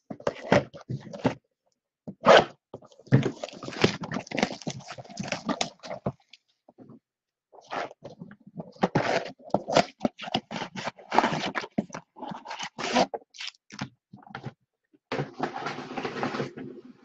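Plastic shrink wrap being torn and crinkled off a cardboard trading-card box, and the box and its foil packs handled, in runs of crackling and rustling with short pauses.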